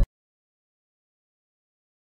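Dead silence: background music cuts off abruptly right at the start and nothing follows.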